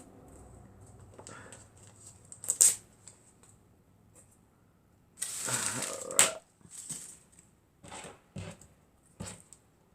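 Handling noises of craft materials: a sharp click, a rustle of about a second some five seconds in that ends in a sharp snap, then a few short taps.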